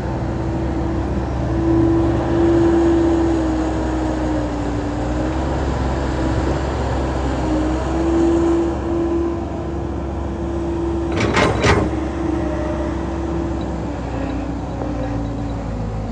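Kubota DC70 rice combine harvester running steadily, its diesel engine giving a low drone with a humming tone that wanders slightly in pitch. A quick run of sharp knocks comes about eleven seconds in.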